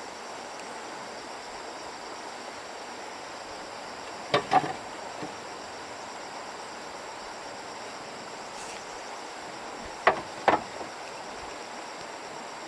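Steady drone of insects with sharp knocks, two in quick succession about four and a half seconds in and another two about ten seconds in.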